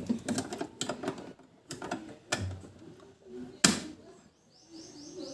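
Clattering clicks and knocks of the refrigerator's plastic light cover being handled and fitted, with one sharp knock about two-thirds of the way through. Near the end there is a faint run of quick high chirps.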